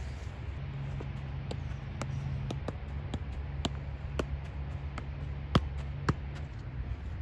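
A soccer ball being juggled: a series of sharp ball touches off the foot and knee, roughly two a second, with one harder touch about five and a half seconds in. A steady low hum runs underneath.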